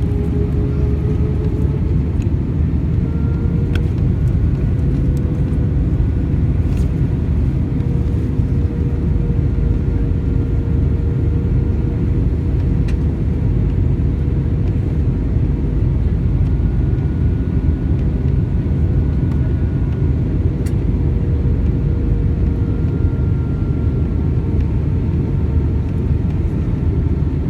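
Steady cabin noise inside an Airbus A319-131 in flight: the rush of air over the fuselage with the hum of its IAE V2500 turbofan engines. An engine tone rises slightly in pitch over the first few seconds, then holds steady.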